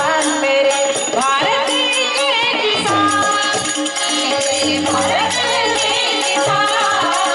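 A woman singing a Hindi devotional bhajan over a steady drone note, with small brass hand cymbals (manjira) clashing in a regular rhythm.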